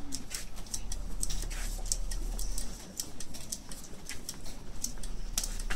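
Rapid, irregular light clicks and snaps of bra hook-and-eye clasps being unhooked one after another by one hand, several a second, over a low steady hum.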